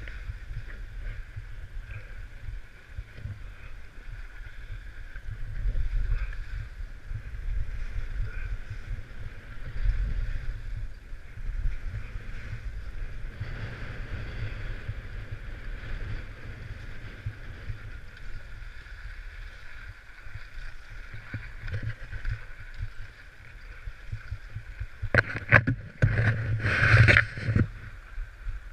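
Wind buffeting the microphone over a steady hiss of sliding down a groomed ski slope. Near the end come a few louder, sharp scrapes.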